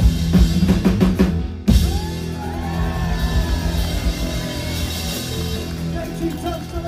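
Live rock band on an outdoor stage, drums pounding. About two seconds in a last big hit lands, and the band's final chord is held, ringing out.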